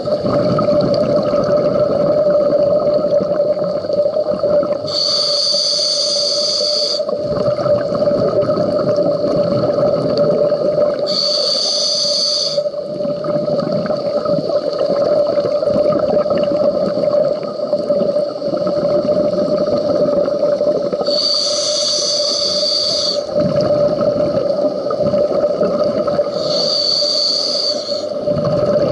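Underwater audio of a scuba diver breathing through a regulator: four hissing inhalations, each lasting a second or two, with rumbling exhaled bubbles between them, over a steady hum.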